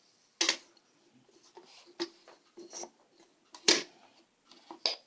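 Wooden clacks and knocks from a rigid heddle loom as the heddle and a wooden pickup stick are shifted to open the shed: four sharp knocks with a few fainter taps between, the loudest about three-quarters of the way through.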